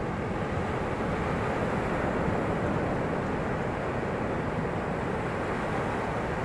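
Steady wash of ocean surf on the shore, with wind rumbling on the microphone.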